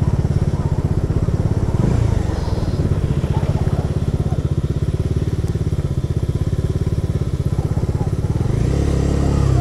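Bajaj Dominar's single-cylinder engine running while the bike is ridden, a steady fast pulse, with a brief lull about two seconds in.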